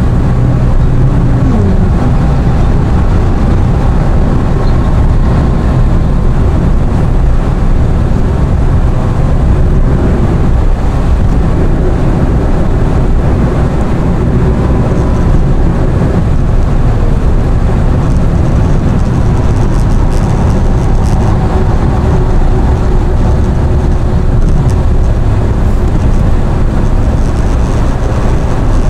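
Car driving on the road: steady engine and road rumble.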